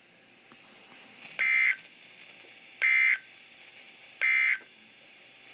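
Emergency Alert System digital data tones: three short, identical screeching bursts about a second and a half apart, over faint radio hiss. Three short bursts right after the test message is closed are the end-of-message code that signs off the alert.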